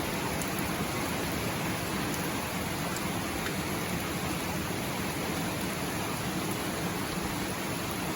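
Steady rain falling, an even hiss of drops with a few faint individual drop ticks.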